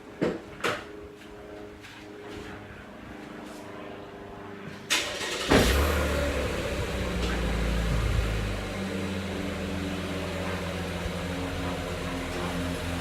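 Chevrolet Camaro LT engine cranking and starting about five seconds in, flaring up, then settling to a steady idle. Two sharp clicks come near the start.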